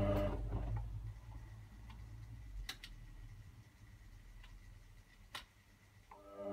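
Hotpoint Aquarius WD62X washing machine in its main wash: the drum motor's hum dies away about half a second in, leaving a quiet pause with a few faint clicks while the drum rests. The motor hum starts up again just before the end for the next tumble.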